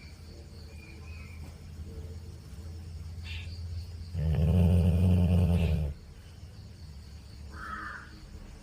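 Labrador snoring: low, quieter breathing snores that slowly build, then one loud snore lasting under two seconds about four seconds in.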